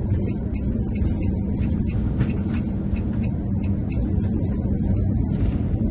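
A motorhome driving at steady speed, with its engine and road noise heard as an even low rumble from inside the cab.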